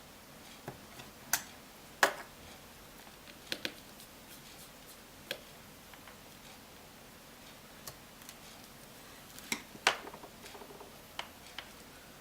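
Scattered sharp clicks and light taps of small repair tools and tiny screws on an iPhone 5 as two screws at the home button are taken out. The clicks come irregularly, loudest about two seconds in and again near ten seconds.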